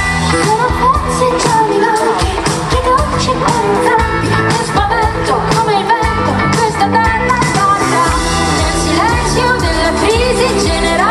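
A live pop band playing loudly, with drums, guitars and keyboards, while a voice sings over it.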